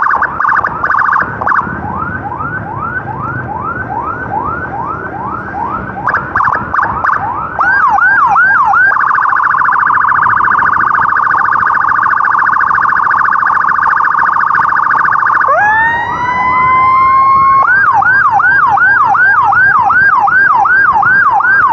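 Electronic ambulance siren switching between tones: a repeated yelp of about two to three rising sweeps a second, a steady rapid warble from about nine seconds in, then a long rising wail at about sixteen seconds before the yelp resumes. Faint road and engine noise runs beneath it.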